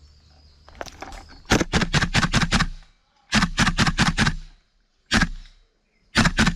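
Airsoft gun firing in quick strings of sharp shots, about six a second, with a single shot between the strings.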